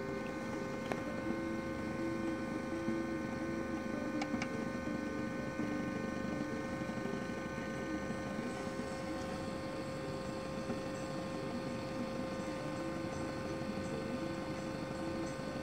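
Laser CNC plotter running as it cuts: a steady hum and whine from its stepper motors and the laser module's cooling fan, with a shifting lower tone as the head moves.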